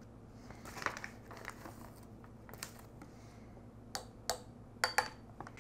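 Small white measuring spoon scooping wasabi powder from a plastic bag and tipping it into a white ceramic mortar: scattered light clicks and taps, with faint crinkling of the bag.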